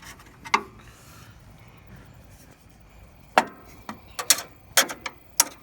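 Sharp metallic clicks and knocks with faint scraping as hand tools work rusted headlight screws and trim loose on a 1982 Chevy Caprice: one click about half a second in, then four more in the last two seconds.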